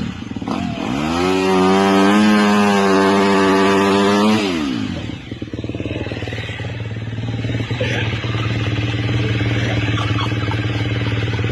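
Engine revved hard and held high for about three and a half seconds, then dropping back to a steady idle.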